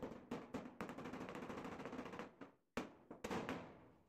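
Claw hammer tapping a ball bearing into the bore of a wooden roller: a rapid run of light taps, then a few harder, separate blows near the end.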